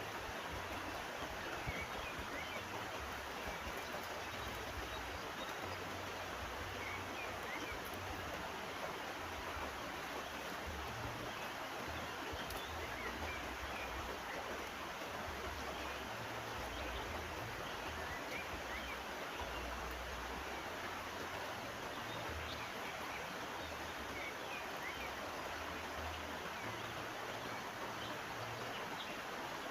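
River water flowing steadily, with faint short chirps scattered through it and a low uneven rumble underneath.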